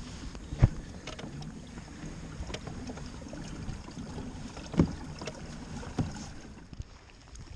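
Small-craft sounds on a fishing kayak: water and light wind noise, with three sharp knocks, the loudest about half a second in.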